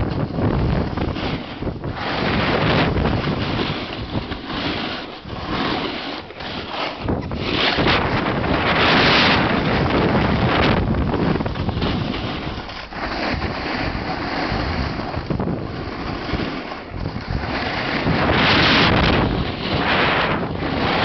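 Wind rushing over the camera's microphone during a snowboard run downhill, mixed with the board sliding over the snow. The rushing swells and fades, loudest about nine and again about eighteen seconds in.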